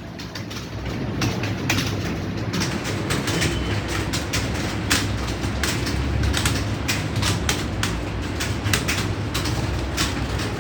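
Many computer keyboards clattering at once as a room of students types at speed: a dense, irregular run of key clicks that grows busier about two and a half seconds in.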